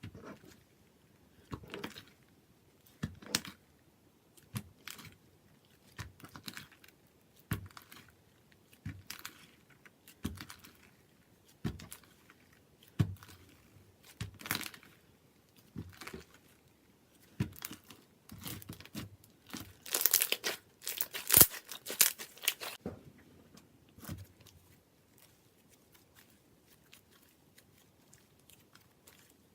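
Clear slime made from liquid glue being pressed and squished by hand, giving repeated short sticky clicks and crackles about once a second. A denser, louder crackly stretch comes about twenty seconds in, and it goes nearly quiet in the last few seconds.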